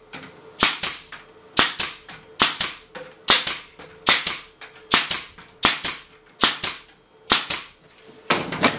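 Pneumatic air stapler driving 1 3/8-inch staples through the end bars into the top bars of wooden beehive frames, one shot per frame. There are nine sharp double snaps, about one every 0.8 s, followed by a clatter of handling near the end.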